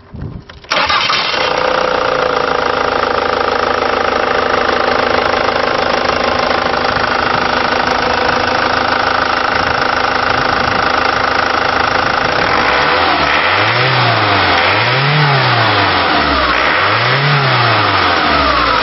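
Ford Transit's 2.0-litre Duratorq DI turbo diesel starting under a second in and settling to a steady idle. In the last few seconds it is revved three times, each rev rising and falling back to idle.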